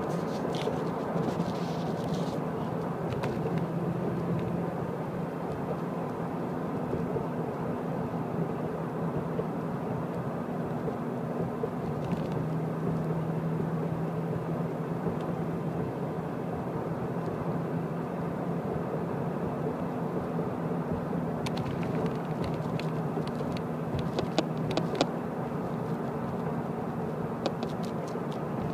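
A car driving, heard from inside: a steady engine and road hum, with scattered light clicks near the start and again in the last third.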